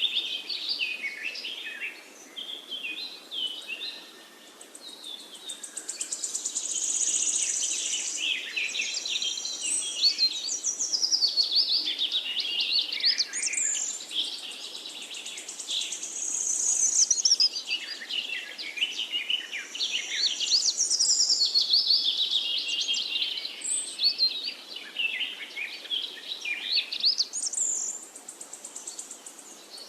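Many small birds chirping and twittering at once, quick high notes overlapping, with a few brief lulls.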